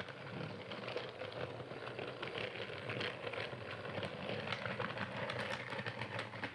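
Percy train running: a steady clattering rattle made of many small, quick clicks.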